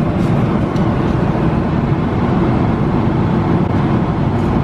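Steady low cabin roar of a Boeing 777-300ER in flight, the constant rush of airflow and engines heard from a seat in the cabin. A couple of faint clicks sound in the first second.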